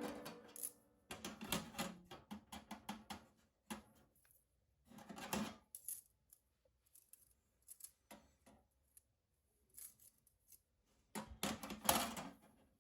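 Light metallic clinks and taps in irregular clusters with pauses between: small steel camping gear such as a compact fire stand being handled and fitted together.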